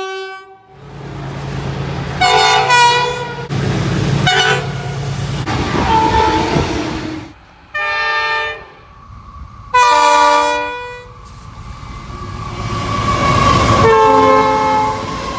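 Train air horns sounding about six chord-like blasts, mostly short, with two longer ones in the second half. A low steady engine rumble runs beneath the first few seconds.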